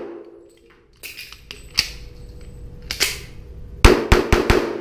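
Pistol shots echoing in an indoor range: two single shots about two and three seconds in, then a fast string of about five shots in under a second near the end.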